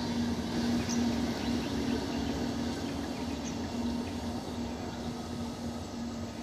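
Eastern Railway EMU suburban electric train running along the track, a steady rumble with a constant low hum, slowly fading as it draws away.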